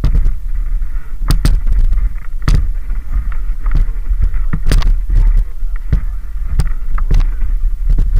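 Mountain bikes jolting over rough gravel: about ten sharp, irregular knocks and clatters over a steady low rumble.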